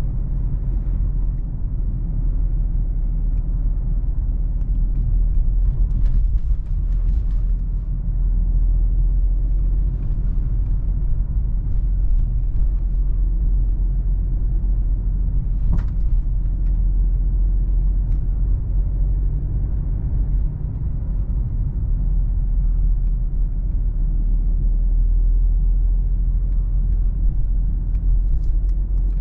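A Mercedes-Benz E220d cabriolet on the move with its roof down: a steady, low rumble of wind, road and its four-cylinder diesel engine. A few faint, brief ticks sound about six seconds in and again near the middle.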